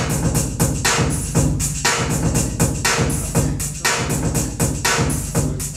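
Music with a fast, steady drum beat over deep bass.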